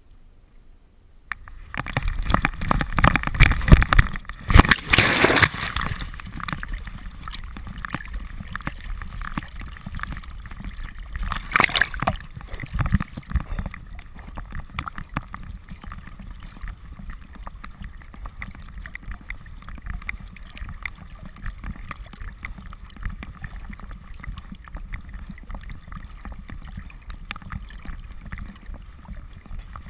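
Water splashing and sloshing around a GoPro camera strapped to a dog's back as the dog leaps from a dock and swims. The loudest splashing comes about two to six seconds in, another loud burst about twelve seconds in, then steady sloshing and gurgling.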